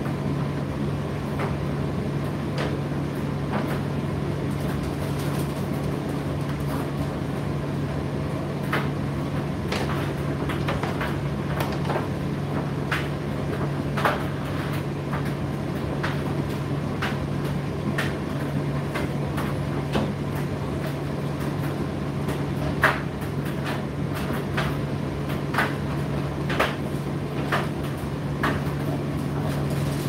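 Indesit IDC8T3 condenser tumble dryer running mid-cycle: a steady motor-and-fan hum with irregular light clicks and knocks scattered through it, one sharper knock near the three-quarter mark.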